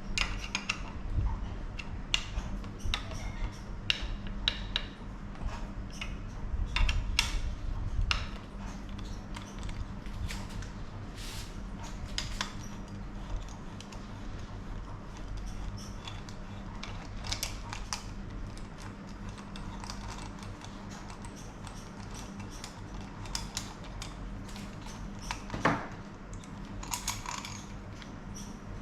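Scattered light metallic clicks, taps and clinks of hand tools and small bike parts being handled during linkage bearing work, with one firmer knock near the end, over a steady low hum.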